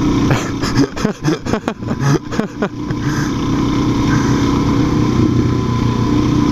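Suzuki DR-Z400's single-cylinder engine running while riding, its pitch rising and falling unevenly for the first couple of seconds with short knocks, then holding a steadier note.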